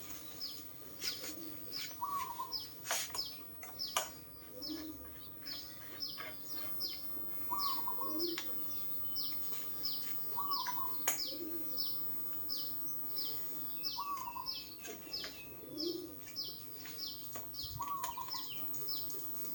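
Birds chirping: a steady run of short, high, falling chirps, two or three a second, with a lower call repeating every few seconds. A few sharp clicks stand out now and then.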